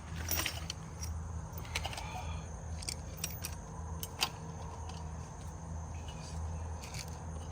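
Scattered light clicks and clinks of the vacuum oil extractor and its hose being handled and set up, over a steady low hum.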